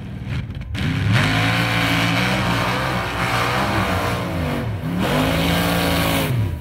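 Mud bogger's race engine at full throttle through a mud pit. It revs up sharply about a second in and holds high, drops briefly about four and a half seconds in, then climbs again before falling off near the end.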